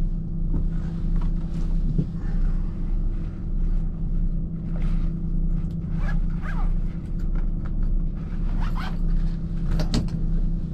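A 2005 Volvo B12B coach's 12-litre six-cylinder turbo diesel idling with a steady hum. Over it come short rustles and scattered clicks as a hi-vis vest is handled and put away.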